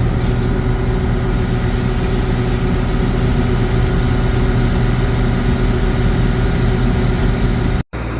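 John Deere 6620 combine running steadily while unloading soybeans into the grain wagon: an even diesel engine hum that holds one pitch, cut off abruptly for an instant near the end.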